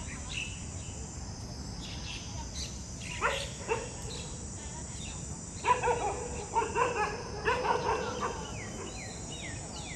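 Dog barking: a couple of barks about three seconds in, then a rapid run of loud barks from about six to eight seconds in.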